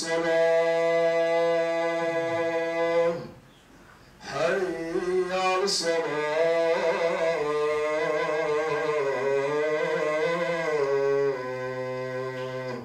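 Adhan, the Muslim call to prayer, chanted by one male muezzin in long held notes. One phrase ends about three seconds in, and after a short pause a longer phrase follows that winds up and down in ornamented turns.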